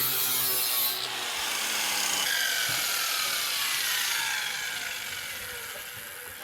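Power grinder cleaning up sheet-steel body panel, the abrasive rasping on the metal. In the second half its whine falls in pitch and fades as the tool spins down.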